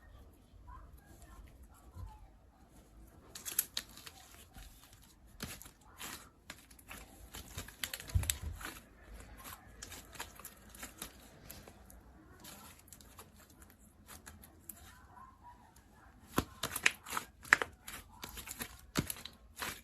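Semi-clear slime being pressed and stretched by hand: sticky crackling and popping clicks that come in clusters, busiest near the start, in the middle and again near the end.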